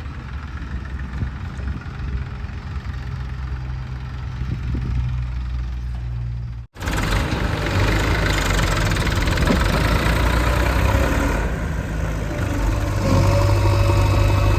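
JCB 3DX backhoe loader's diesel engine running steadily as it works. The sound drops out for an instant about six and a half seconds in, then comes back louder and fuller.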